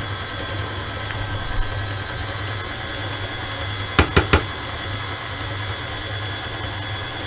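Stand mixer running steadily, blending cheesecake batter, with three sharp clicks about four seconds in.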